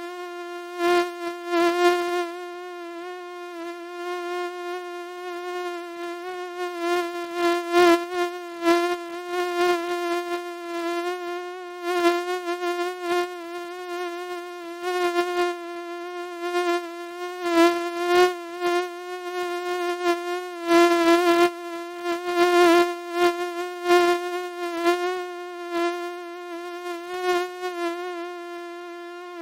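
Mosquito whining in flight: a steady, high buzz with many overtones that keeps swelling louder and fading again as it passes close.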